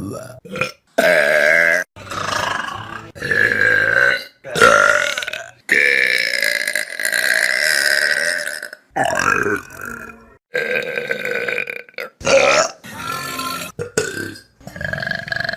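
Loud human burps, one after another with abrupt cuts between them; most last a second or two, and one near the middle is drawn out for over three seconds.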